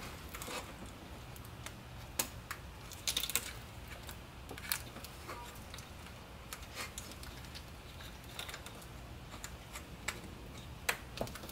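Scattered small clicks and taps of plastic and metal as a hand fits the electrical connectors back onto BMW E90 VANOS solenoids, irregularly spaced, with about a dozen of them, over a faint low steady hum.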